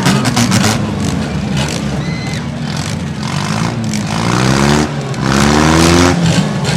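Demolition derby car engine running loudly and being revved, its pitch climbing twice near the end.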